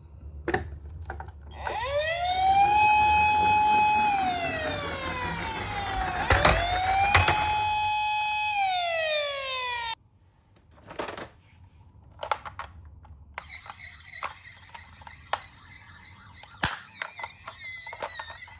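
Toy ambulance minicar's electronic siren wailing in two slow sweeps, each rising to a held tone and falling away, with a low rumble beneath. It cuts off abruptly about ten seconds in and is followed by scattered clicks and knocks.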